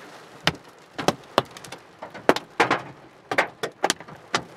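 Hailstones hitting a car's roof and windshield, heard from inside the cabin: about a dozen sharp, irregular knocks over a steady patter. The hail is hard enough to have cracked the windshield.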